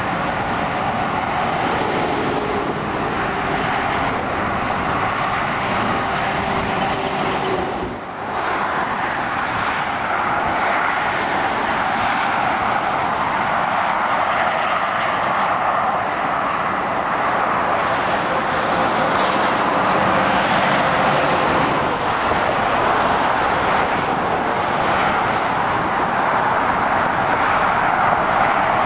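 Steady motorway traffic, with lorries and cars passing on a dual carriageway: continuous tyre roar and engine drone, with a short dip about eight seconds in.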